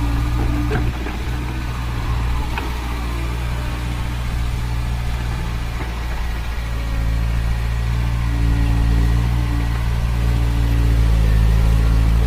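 Large Liebherr 974 crawler excavator's diesel engine running steadily under working load. Its note shifts about a second in and grows louder from about 7 s, with a few short clicks in the first three seconds.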